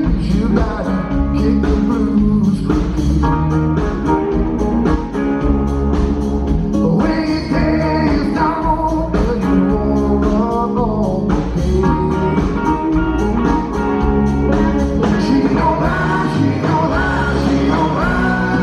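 Live band playing a blues song, with guitar and singing over a steady beat.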